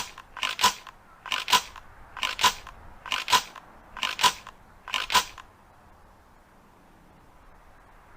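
Ithaca Model 37 pump-action shotgun being worked by hand: six pairs of sharp metallic clicks about a second apart, then quiet for the last few seconds.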